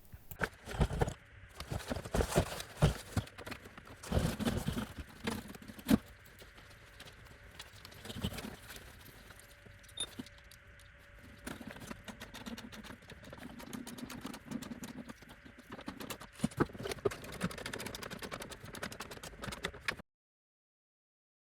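Irregular taps, clanks and rattles of a thin metal exhaust heat shield being handled and bolted back onto a car's underbody, mixed with clicks of hand tools. The sound cuts to total silence about a second and a half before the end.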